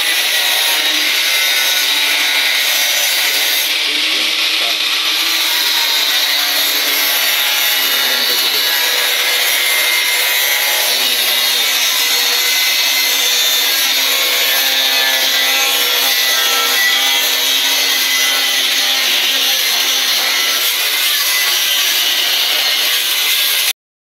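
A power tool running without a break, a steady even noise with faint drifting tones in it, that cuts off abruptly near the end.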